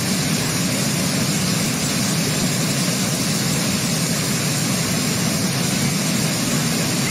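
Heavy rain pouring down and floodwater rushing along a road, a steady, even rushing noise with no pauses.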